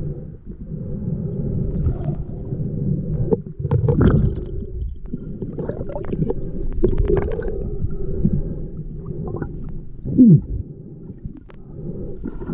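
Muffled underwater sound of a river heard through a submerged camera: a low rumble of moving water with gurgles and scattered clicks. About ten seconds in, a short, loud gurgle glides downward in pitch.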